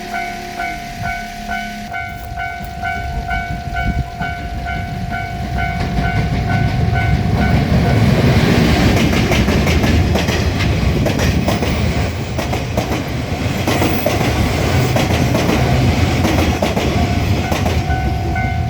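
A Japanese level-crossing alarm rings its repeating electronic bell, about two dings a second. From about six seconds in, a passing train takes over with a loud rumble and the clatter of wheels over rail joints, drowning the bell. The bell is heard again near the end as the train clears.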